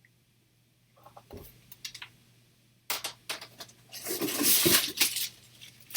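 Graded comic slabs and packing being handled: a few light taps, a sharp knock about three seconds in, then a second or so of loud crinkly rustling.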